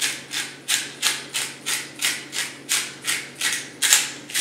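Hand pepper mill grinding black peppercorns: a rhythmic rasping crunch, about three twists a second.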